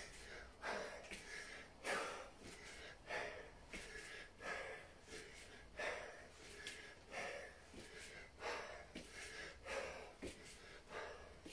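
A man breathing hard from exertion: short, forceful breaths repeating about once a second.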